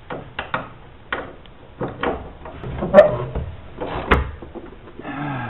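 Clinks and knocks of hand tools and metal parts as a 1989 Corvette's headlight assembly is unbolted and worked loose from its pop-up housing. Two sharper knocks come about three and four seconds in.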